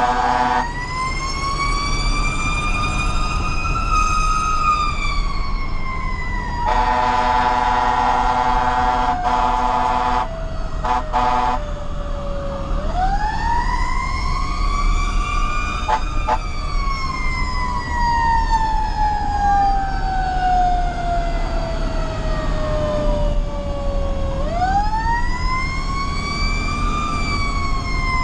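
Fire engine's siren winds up quickly and then coasts slowly down in long wails, heard from inside the cab. Two long air horn blasts come between about seven and eleven seconds in. A low engine and road rumble runs underneath.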